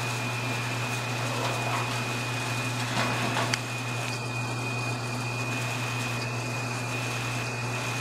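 Indoor furnace blower running steadily and pushing air through the ductwork: a constant hum under an even rush of air, with a steady high tone. A brief rustle of handling comes about three seconds in.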